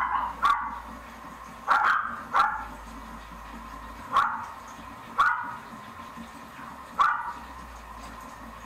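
A dog barking indoors in single short barks, one every second or two, about six in all.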